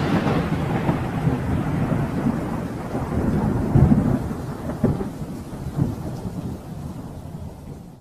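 Sound effect of an animated fiery logo: a deep rumble with a faint crackle above it, swelling a few times and slowly dying away.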